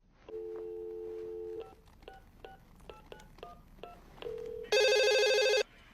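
Telephone placing a call: a steady dial tone, then about seven quick keypad tone beeps as a number is dialled, a short tone, and a loud, harsh buzzy ring lasting about a second.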